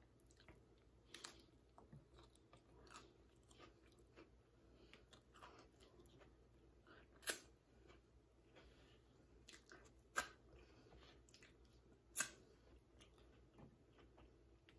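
Faint chewing of a chicken taco with coleslaw: soft, wet mouth sounds and small clicks, with three sharper clicks in the second half.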